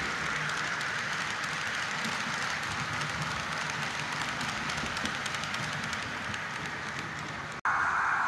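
Märklin H0 model train running on its track: a steady motor whine and rolling hum with faint rapid clicking. Near the end the sound drops out for an instant, then a louder whine resumes.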